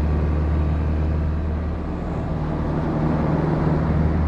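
Single-engine light aircraft's engine and propeller at takeoff power during the takeoff roll on a grass strip: a steady low drone.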